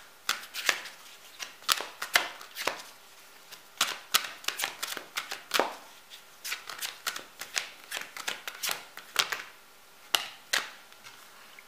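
A deck of oracle cards being shuffled by hand: a run of irregular card snaps and short papery rustles, with brief pauses between bursts.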